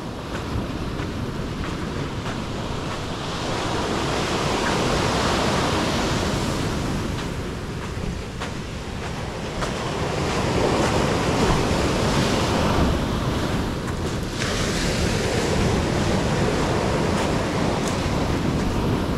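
Sea waves breaking and washing up the beach, swelling louder and falling back about three times, with wind rumbling on the microphone.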